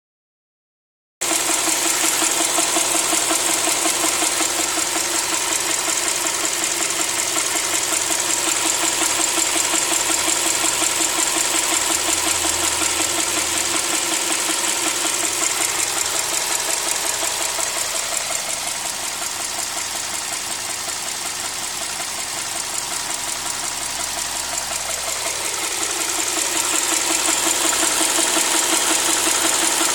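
Subaru EL15 1.5-litre flat-four engine running with a fast, steady knock. The knock comes from a failing timing-belt idler pulley. The sound drops in level for several seconds about two-thirds through, then comes back up.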